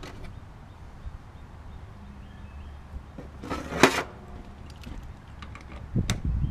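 Hand-tool handling: a brief rustling scrape ending in a small metal click just under four seconds in, and a sharp tap near the end, over a low rumble.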